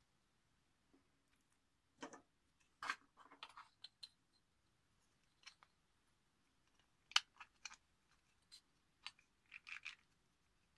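Scattered light clicks and knocks of hard 3D-printed plastic parts being handled and fitted together, as a printed differential is seated into its printed housing.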